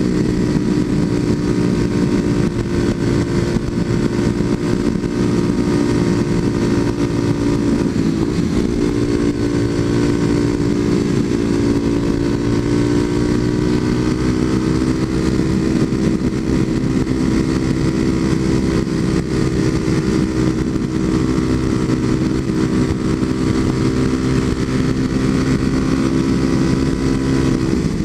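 Kawasaki KLX250SF's single-cylinder engine through a Muzzy aftermarket exhaust, running steadily at highway cruising speed, with a brief dip and recovery in engine pitch about eight seconds in. Wind rush on the helmet-mounted camera underneath.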